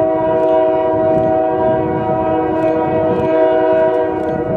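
Diesel freight locomotive's multi-note air horn held in one long chord. Sharp clicks from the train's wheels on the rails come through under it.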